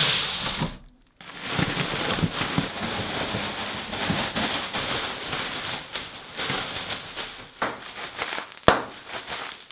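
Inflated plastic air-cushion packaging crinkling and crackling as it is pulled out of a cardboard box, with one sharp snap near the end.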